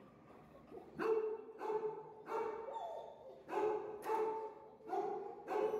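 A dog barking repeatedly, about seven barks, starting about a second in.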